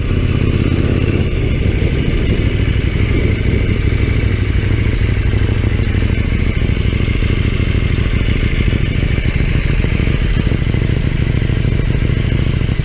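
KTM motorcycle engine running steadily at a low, even pitch, heard close up from the rider's on-board camera, with no revving.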